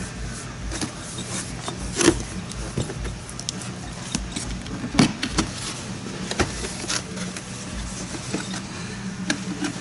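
An RC kit's cardboard box and bagged parts being handled and rummaged through, with scattered rustles and clicks and two louder knocks about two and five seconds in, over a faint steady low hum.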